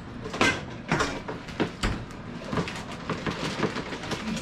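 Kitchen clatter: a string of irregular knocks and clicks from cookware and utensils being handled while shrimp are readied for frying in hot oil.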